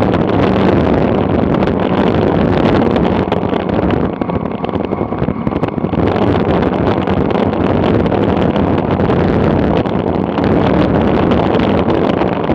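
Wind rushing over the microphone of a camera riding on a bicycle during a fast road descent, a loud steady roar of air that eases briefly about four seconds in before building again.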